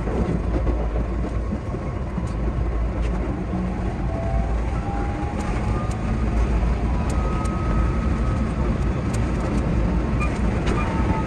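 Keihan 8000 series electric train running at speed, heard from the driver's cab: a steady rumble with clicks of the wheels over rail joints and a thin whine that slides in pitch. Near the end a level-crossing bell rings in quick repeats.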